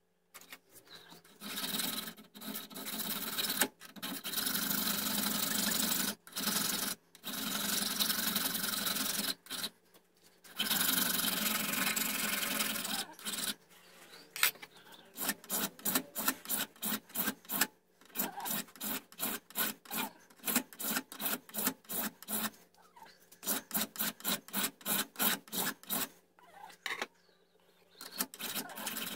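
Hand file rasping back and forth over a small metal ramrod pipe clamped in a vise. Long strokes come first, then quicker short strokes, about three a second, in the second half.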